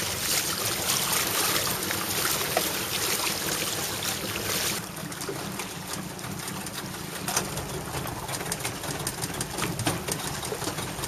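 River water rushing and splashing against the side of a boat, with many small slaps and splashes from the choppy surface. The rush is louder for the first five seconds or so, then drops a little.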